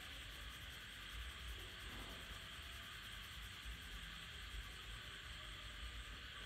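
Faint steady hiss with a low hum underneath: background room noise.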